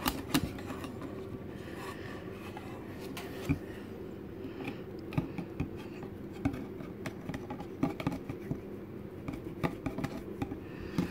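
Wire balloon whisk stirring pudding mix in a plastic bowl, its wires tapping and scraping against the bowl in quick, irregular clicks. The still-thin pudding is being whisked until it thickens.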